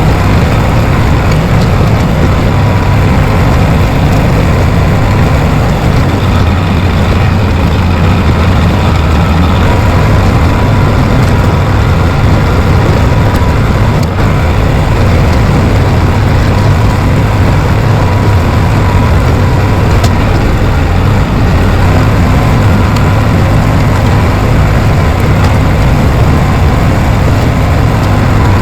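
Bulldozer's diesel engine running steadily at a constant speed, a loud low hum with no breaks.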